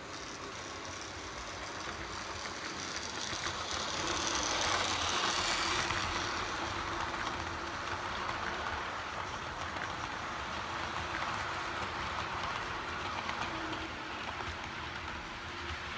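OO gauge model Class 56 locomotive running past with a train of coal hopper wagons: electric motor hum and wheels running on the track. It grows loudest about five seconds in as the locomotive passes closest, then the wagons roll by more steadily and ease off near the end.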